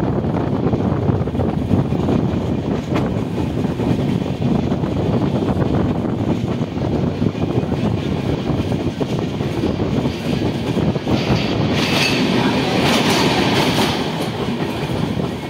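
Steady rumble and clatter of a passenger express train's coaches running at speed on the track, with occasional sharp clicks. The sound turns brighter and harsher for about three seconds near the end.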